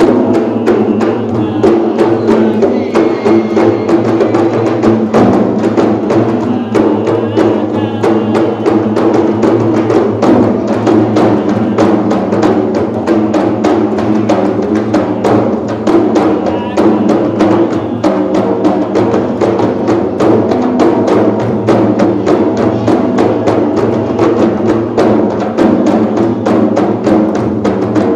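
Several large hand-beaten frame drums (rebana) played together in a fast, steady rhythm, with a man's voice chanting along.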